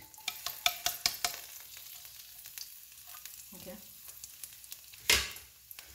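Finely chopped garlic sizzling in a tablespoon of oil in a stainless-steel wok while it is sautéed. A spatula stirs it, clicking and scraping against the pan in the first second or so. One loud knock comes about five seconds in.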